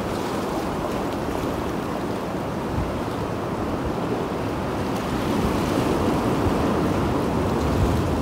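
Sea surf washing steadily against the rocks, a continuous wash of noise, with wind on the microphone.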